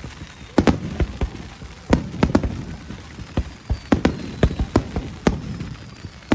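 Aerial firework shells bursting in a fireworks finale: a rapid, irregular string of sharp bangs, two or three a second, each with a low rumbling tail.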